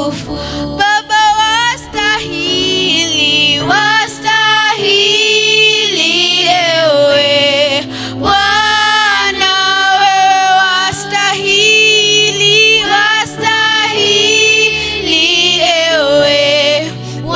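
A woman singing a worship song through a microphone, with children's voices singing along; many of the notes are long and held.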